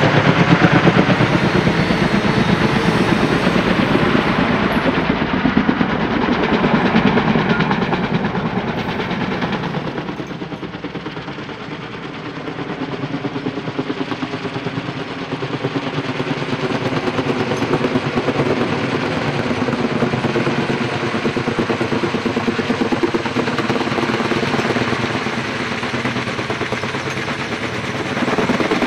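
Helicopter in flight with the rapid chop of its rotor blades and the whine of its engine. It fades to its quietest about ten to twelve seconds in, then grows louder again as it comes back.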